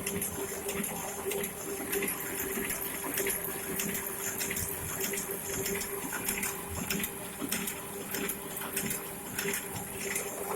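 Offset printing press running, a steady hum with a constant tone under rapid, continuous clicking and clatter from its mechanism.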